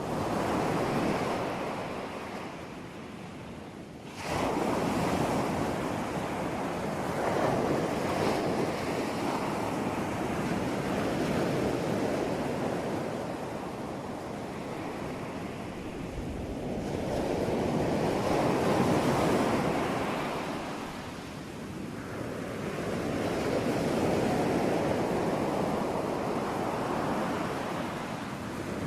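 Ocean surf: waves breaking and washing in, the noise swelling and ebbing every several seconds, with a sudden rise about four seconds in.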